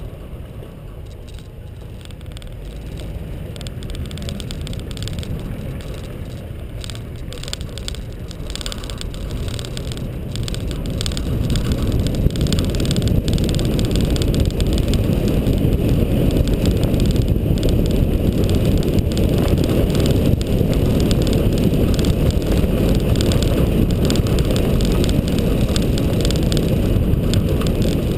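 Nissan GU Patrol with its TB45 4.5-litre straight-six petrol engine driving along a dirt forest track. Engine, tyre and wind rumble come through an outside-mounted camera microphone. The rumble grows louder, stepping up about twelve seconds in.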